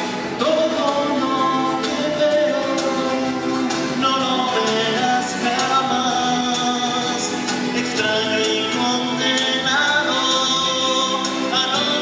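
Live Latin American folk song: men singing over strummed acoustic guitars and an acoustic bass guitar.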